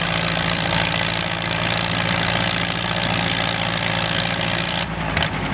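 Farmall 400 tractor engine running steadily under load, pulling a weight sled. A low engine note carries a heavy hiss, and the hiss drops off suddenly near the end.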